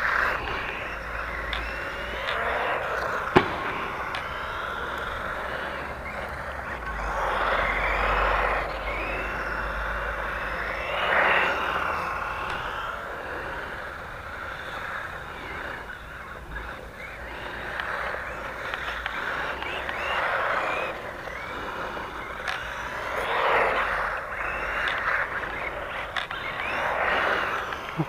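Small 1:16 four-wheel-drive electric RC car driving on asphalt: its motor whine and tyre noise rise and fall in pitch and loudness as it speeds up and slows. A single sharp knock about three seconds in is the loudest sound.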